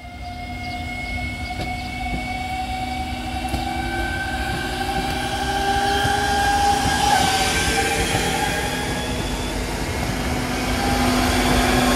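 Red Slovenian Railways passenger multiple unit running in along the platform, getting louder as it comes near and passes. Its running noise carries several whining tones that drift slowly in pitch.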